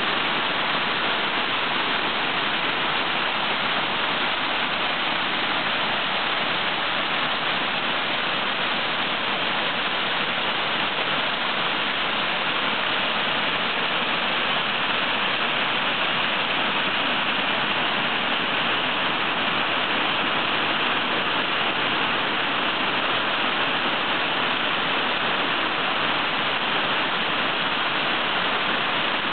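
A 65-foot spring-fed waterfall rushing steadily, its water spilling in many thin streams over mossy calcite rock.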